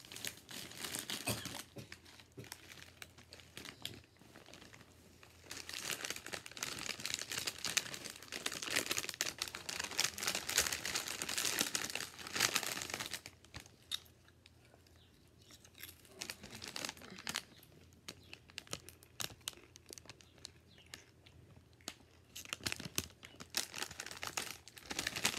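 Crinkly plastic bag being handled and crumpled: long stretches of crackling in the first half, then quieter, scattered rustles.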